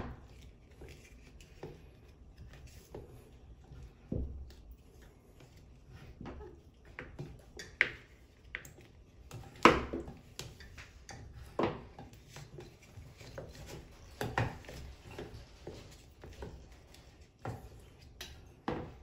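A rubber strap wrench turning a stuck Moen Eva faucet handle loose: irregular clicks, knocks and rubbing of the wrench and the metal handle parts. The sharpest knock comes about ten seconds in.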